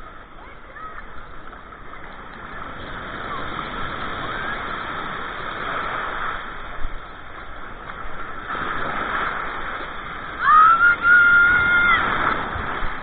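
Water sloshing and lapping as a steady wash. About ten and a half seconds in, a short high-pitched call is held for over a second, and it is the loudest sound.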